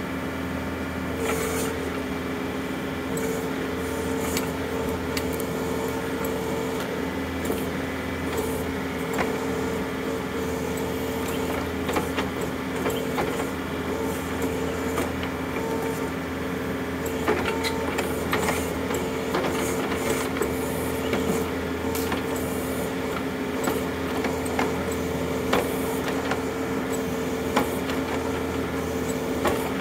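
John Deere compact utility tractor's diesel engine running steadily while its backhoe digs, with a steady whine under the engine note. Scattered cracks and knocks of the bucket working through roots and dirt, more of them in the second half.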